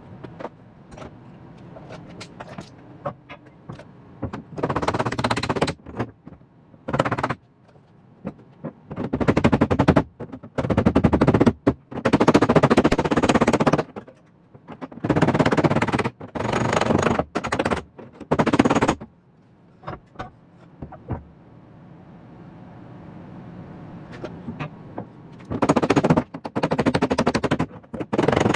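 Welding arc on car-body sheet steel, going in repeated bursts of about one to two seconds with short pauses between, as a too-big hole is filled with 1/16-inch filler rod. Each burst crackles.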